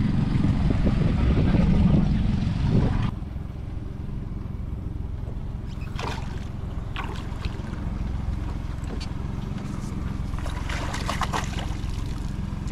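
A hooked fish splashing at the surface beside a small boat, with a dense run of splashes near the end, over a steady low hum. A louder rush of noise cuts off suddenly about three seconds in.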